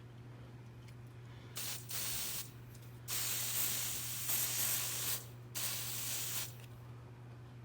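Aerosol can hissing in four spray bursts, the longest about two seconds, typical of canned test smoke being sprayed into a smoke detector to set it off during a fire alarm test.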